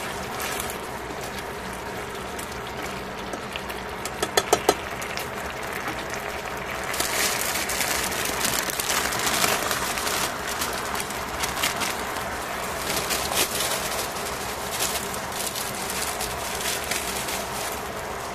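Pork slices sizzling and bubbling in sauce in a stainless steel pan, with a few sharp clicks of chopsticks against the pan about four seconds in. The sizzling turns louder and more crackly from about seven seconds in, as shimeji mushrooms go into the pan.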